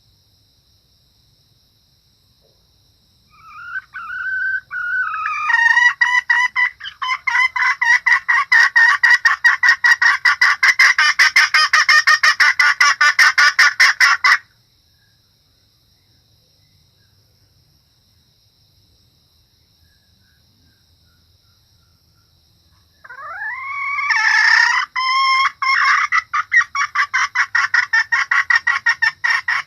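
Female junglefowl (ayam hutan betina) calling in two long bouts. Each starts with a few gliding notes and breaks into a fast, even run of pulsed cackling notes. The first bout stops abruptly after about eleven seconds, and the second starts about nine seconds later. A faint steady high insect-like whine runs underneath.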